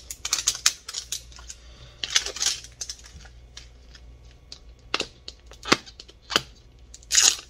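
Zuru Mini Brands plastic capsule ball being peeled and twisted open by hand: scattered sharp plastic clicks and taps with short crackling bursts from its wrapper layers.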